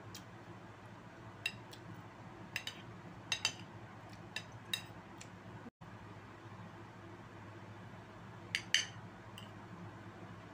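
Metal cutlery clinking against ceramic bowls and plates: a scatter of short, sharp clinks with a brief ring, the loudest pair near the end, over a low steady hum.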